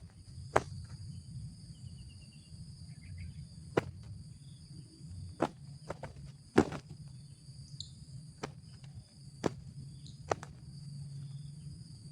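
Insects chirping steadily in a high, unbroken drone, with a scattering of sharp, irregular clicks or knocks every second or two, the loudest about six and a half seconds in.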